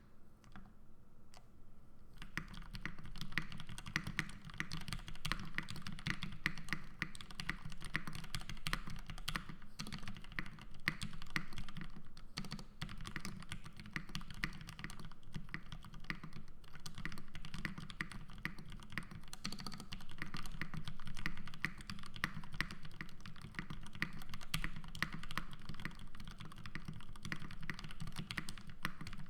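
Fast, continuous typing on a custom Bisoromi RS mechanical keyboard with Gateron Ink V2 linear switches and GMK keycaps, each keystroke a click with a deeper low note under it. The first couple of seconds hold only a few scattered keystrokes before the steady typing starts.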